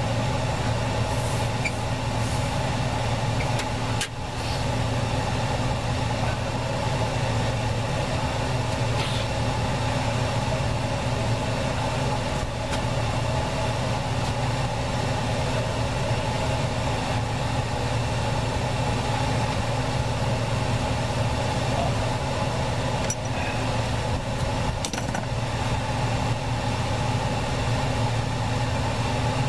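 Portable electric fan running with a steady low hum, with a few light knocks as copper refrigerant tubing is handled and fitted.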